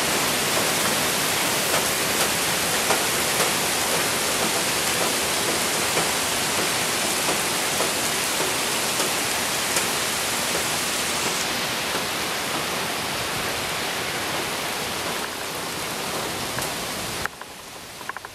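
Heavy rain shower pouring down steadily, a dense hiss with scattered drop taps. About 17 seconds in the sound drops sharply in level, with a few clicks.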